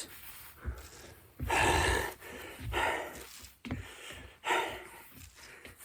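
A man panting hard while doing burpees: heavy, noisy exhales about once a second, the loudest about a second and a half in.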